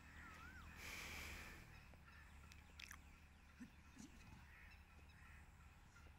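Near silence: faint outdoor ambience, with a short wavering bird call near the start and a brief hiss about a second in.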